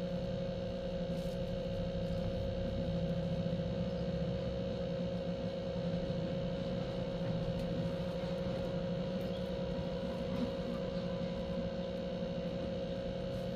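A steady hum with a constant tone, and a few faint ticks now and then.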